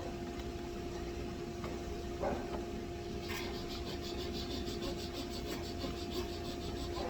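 A steady low hum, joined about three seconds in by fast, even scraping strokes, about five a second, with a rasping sound.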